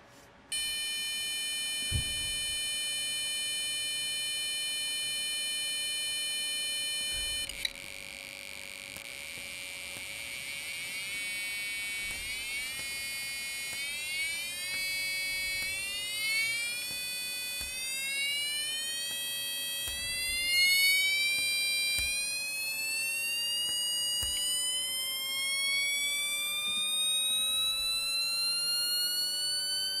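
Piezo buzzer driven by an Arduino's tone() output. It starts as a steady buzz at a very low set frequency, then from about seven seconds in climbs in pitch in a series of upward steps, each rise coming while the push button is held, until it becomes a high whine.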